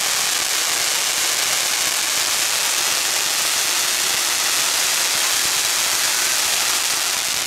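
Ground fountain firework spraying a column of sparks with a steady, loud hiss, stopping abruptly at the very end as it burns out.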